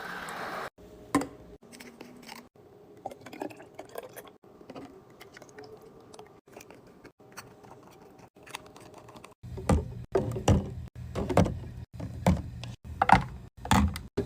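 Small clicks, taps and knocks of items being handled and set into a mini fridge while restocking it, with abrupt cuts between short takes. From about nine and a half seconds in, a low steady hum runs under a run of louder knocks.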